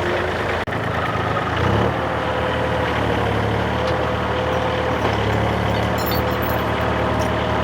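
Excavator's diesel engine running steadily; about two seconds in its note steps up and holds at a higher speed, with a faint whine over it.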